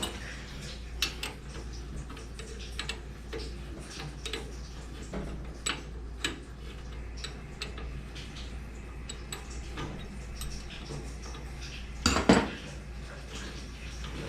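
Scattered metallic clicks and clinks of hand tools working the rusty mounting screws on a water heater's pump flanges, with a louder cluster of knocks about twelve seconds in.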